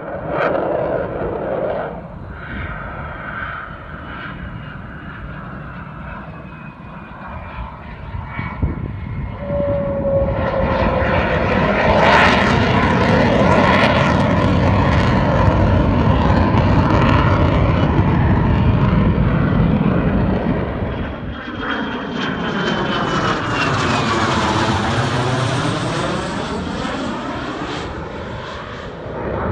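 Jet noise from an F-22 Raptor's twin turbofan engines flying past. It swells about ten seconds in and stays loud for several seconds. Later a falling whine and a sweeping, phasing rush mark the jet passing overhead, and the sound eases near the end.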